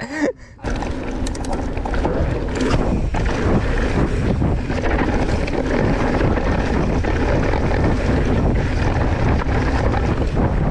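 Mountain bike descending a dirt trail at speed: steady wind buffeting the camera microphone, with tyre noise and the bike rattling over bumps. It starts abruptly just under a second in.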